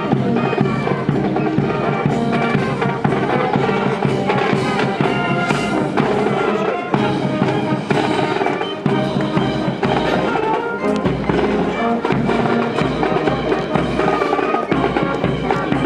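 Band music with drums playing.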